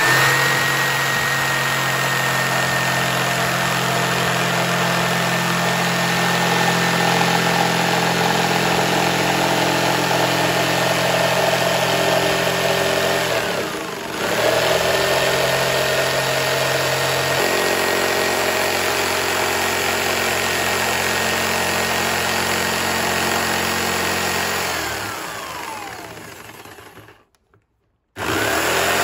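Corded electric jigsaw cutting a thin fibreboard sheet: a steady motor whine with the blade's buzz. About halfway the pitch falls briefly and comes straight back up, and near the end it winds down with a falling pitch, stops, then starts up again.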